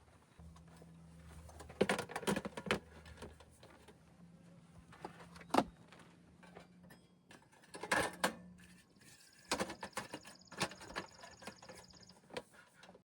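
Objects being handled: scattered knocks, clicks and rattles over a low steady hum, with a faint high whine for a couple of seconds near the end.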